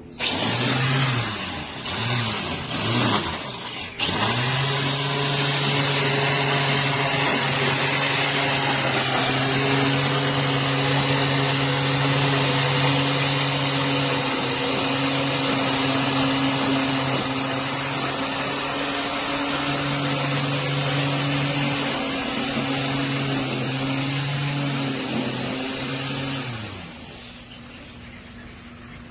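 Black+Decker MTE912 corded 6.5-amp electric string trimmer triggered in about four short bursts, then running steadily for over twenty seconds with a motor hum and the whir of the spinning line. It switches off and winds down near the end.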